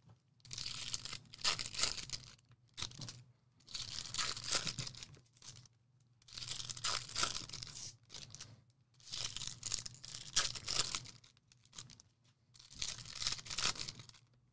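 Sports card pack wrappers being torn open and crinkled, in several separate bursts of tearing a second or two long each.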